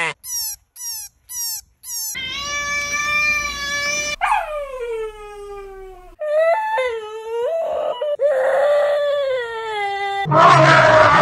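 Cartoon animal characters crying in turn: four short sobs falling in pitch, then long high wails that sag downward, and a louder, rougher wail from about ten seconds in.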